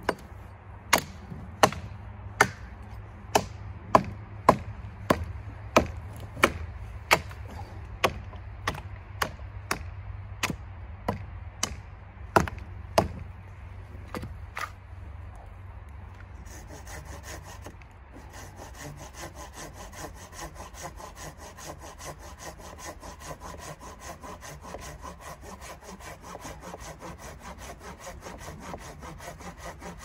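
A hatchet chopping into a pine branch in a steady run of sharp strikes, about one and a half a second, for roughly the first half. These give way a little past halfway to a hand saw rasping back and forth through the branch in quick strokes.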